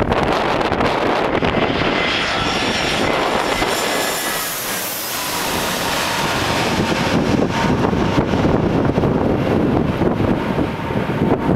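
Airbus A320 jet engines passing on landing, a high whine over a steady rumble that is plainest in the first half. Strong wind buffets the microphone throughout.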